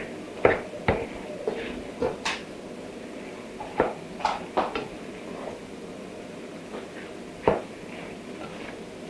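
Wooden spatula stirring a chunky stew in a nonstick frying pan: irregular knocks and scrapes against the pan, with a louder knock about seven and a half seconds in.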